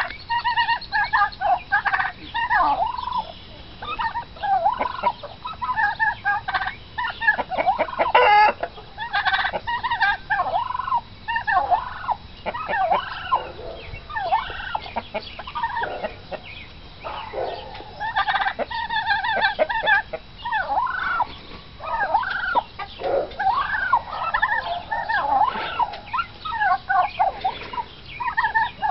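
Domestic turkeys calling agitatedly and almost without pause while squabbling: a stream of short, bending chirps and clucks, with a quick rattling run of notes about eight seconds in.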